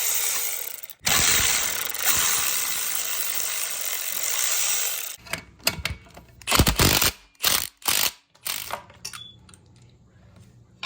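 Handheld power tool with a socket, such as a cordless ratchet or drill, running on the scooter's exhaust bolts. It stops briefly about a second in, then runs on for a few seconds. After that come several sharp metal clanks and knocks as parts are handled.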